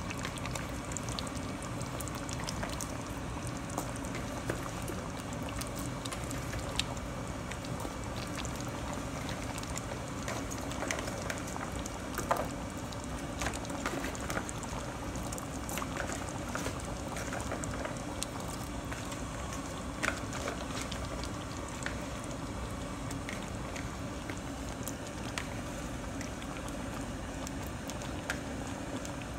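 Chicken and vegetables in tomato sauce simmering in a pan, bubbling steadily, with scattered small pops and clicks.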